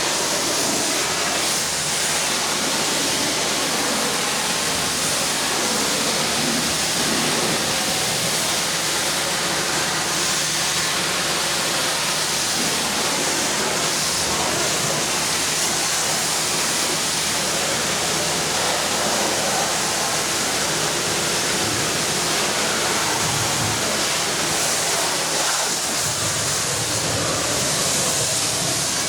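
Pressure washer spraying a steady high-pressure jet of water, a continuous hiss with a faint low hum of the washer's pump.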